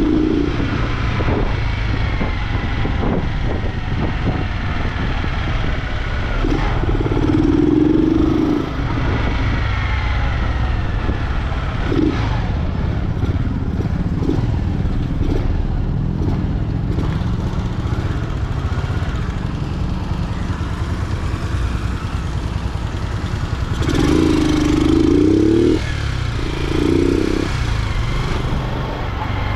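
Single-cylinder engine of a 2007 Honda Fan 125 motorcycle running with its air filter removed and a 'vareta' exhaust. It is ridden along, with louder throttle surges at about eight seconds and twice near the end.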